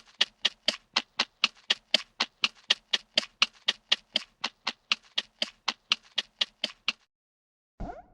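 Cartoon footsteps sound effect: an even series of short taps, about four a second, that stops abruptly after about seven seconds. A short gliding sound follows near the end.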